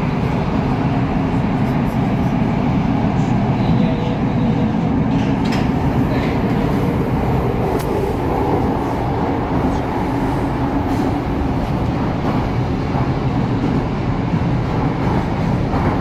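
Moskva-2020 (81-775/776/777) metro train running between stations, heard from inside the carriage: a loud, steady low rumble of wheels and running gear with a few faint clicks.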